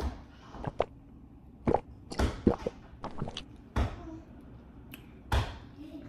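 Scattered light knocks and taps of things being picked up and set down on a kitchen counter, a large plastic drink cup among them, with a sharp click right at the start.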